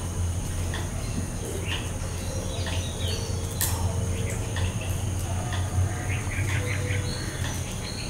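Assorted wild birds chirping and calling, short chirps coming on and off, over a steady low hum, with one sharp click about three and a half seconds in.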